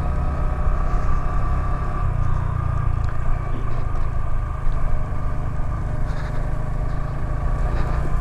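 Honda Grom 125 cc single-cylinder motorcycle engine running at a fairly steady throttle while riding off-road, over a heavy low rumble.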